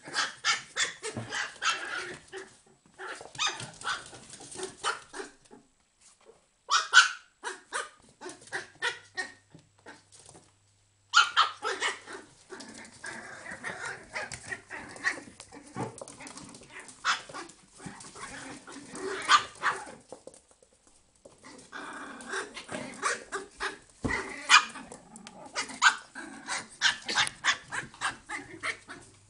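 Pinscher puppies barking and yipping in rapid bouts, with a few short pauses between them.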